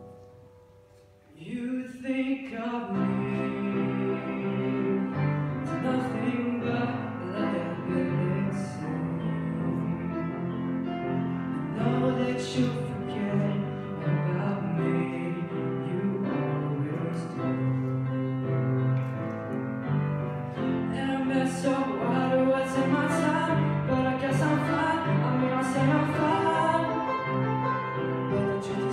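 A male voice singing a song to upright piano accompaniment, live. After a brief near-pause at the start, piano and voice come in about a second and a half in and carry on steadily.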